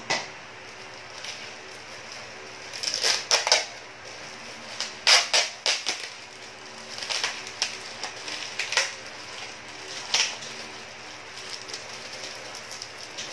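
Clear plastic bag crinkling and rustling in irregular bursts as it is handled and opened, the loudest bursts around three and five seconds in.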